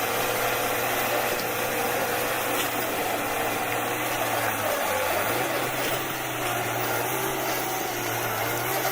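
A machine's engine running steadily under mechanical noise, its note dipping briefly about halfway through before settling again.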